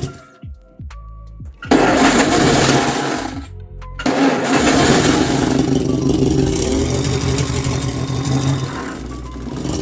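GAZ-69's flathead inline-four engine in a few short takes: it twice spins down with falling pitch, then runs steadily from about four seconds in.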